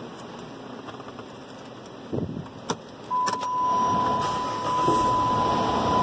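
Keys jangle and click in the ignition. About three seconds in, the Chrysler 300's 3.5 V6 cranks briefly, catches at once and keeps running, while a steady electronic warning tone sounds alongside. The quick start shows that the intermittent extended-crank fault is cured by the new cam and crank sensors.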